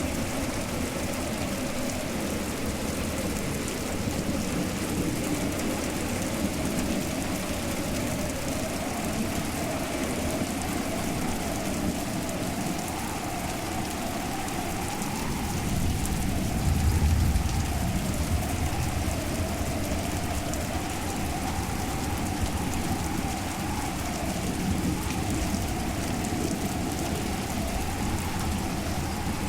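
Steady rain, with a low rumble like distant thunder swelling about sixteen seconds in and easing off a few seconds later.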